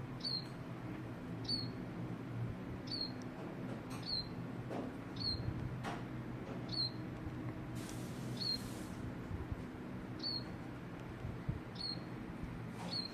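Baby bird cheeping: short, high single chirps repeated about once a second, over a low steady hum.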